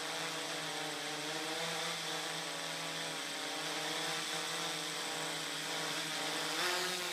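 CarbonCore 950mm hexacopter's six brushless motors spinning 14-inch propellers in flight: a steady, multi-toned propeller buzz with a hissing wash above it. Near the end the pitch rises briefly as the motors speed up.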